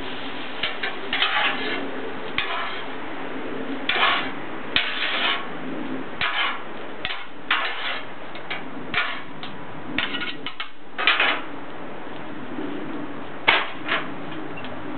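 Metal spatulas scraping, tapping and clacking against a Blackstone steel flat-top griddle at irregular intervals as pork chop and rice are chopped and mixed. Underneath is a steady sizzle from the food cooking on the hot plate.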